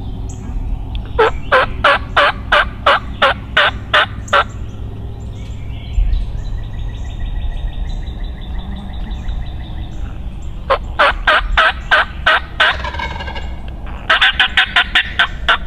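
A bird calling in three runs of sharp repeated notes, about four a second, over a steady low rumble.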